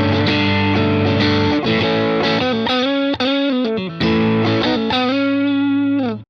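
Electric guitar through overdrive, a single-coil S-style guitar, playing sustained chords with steady picked attacks. Near the end the notes slide down in pitch and the sound cuts off abruptly.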